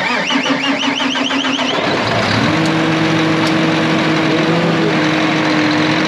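John Deere 7230R's high-pressure common-rail diesel engine cranking on the starter for about two seconds, then catching and settling into a steady run while fed from an injector-flush canister.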